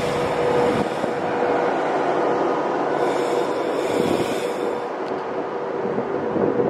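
Virgin Trains Class 390 Pendolino electric train passing close by: a steady rolling rush of wheels on rail with a faint steady tone, as its last carriages and rear cab go past.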